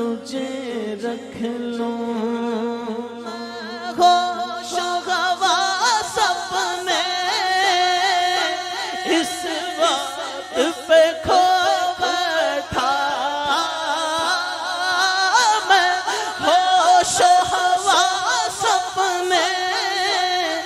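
A male voice singing a naat in long, wavering, drawn-out notes. The sound grows fuller and louder about four seconds in.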